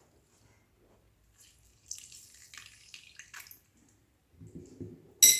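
A lemon being squeezed by hand, its juice spattering and dripping for about a second and a half, then some softer handling noise and one sharp ringing clink near the end.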